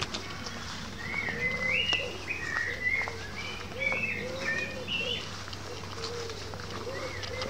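Birds singing: a songbird's short, quick chirping phrases for the first half, and a pigeon's low, repeated coos from about two and a half seconds in.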